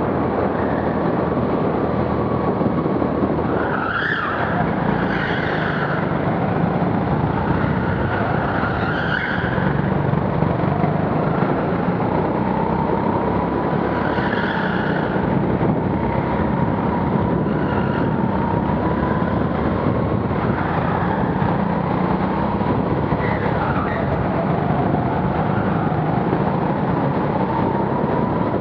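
Go-kart engine running hard, heard from the driver's seat, its pitch rising and falling through the lap. Short tyre squeals come through several corners, with a thump about four seconds in.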